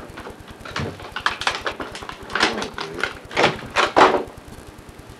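A series of short, irregular knocks and rustles, about six over a few seconds, like objects being handled and set down.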